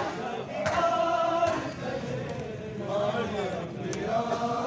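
Men's voices chanting a mourning dirge together, punctuated by a few sharp slaps of hands striking bare chests in matam.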